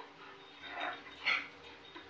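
A dog making two short vocal sounds about half a second apart, the second one louder and sharper.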